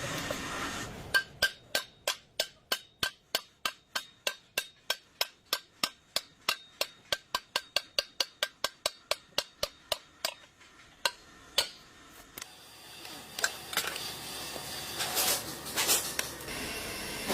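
Sharp metallic taps repeated evenly, about three a second for some nine seconds, then two single taps, followed by a stretch of hiss.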